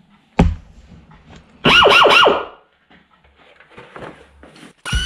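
A single sharp knock, then three quick glides falling steeply in pitch, loud and close together. Rock music cuts in near the end.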